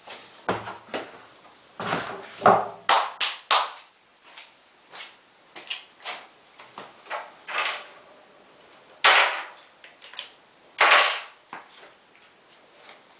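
Irregular knocks and clatters from hands-on work on a washing machine, with two short scraping or rustling bursts about 9 and 11 seconds in.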